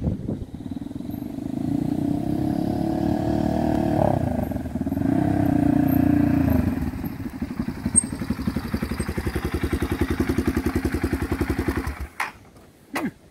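Small motorcycle engine revving up and down as the bike rides in, then idling with an even putter. It cuts off suddenly near the end, followed by two sharp clicks.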